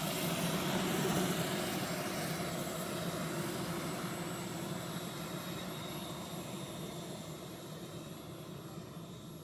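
Radio-controlled model aircraft engine running in flight, its sound fading steadily as the plane moves away.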